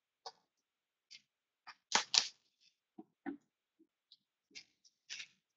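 Cardboard trading-card box being handled and opened: a string of short taps, scrapes and rustles, the loudest pair about two seconds in.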